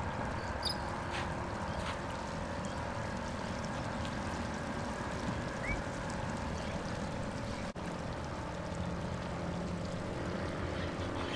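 Steady wind and water noise on an open pier, with a faint steady hum underneath. One short rising chirp about halfway through.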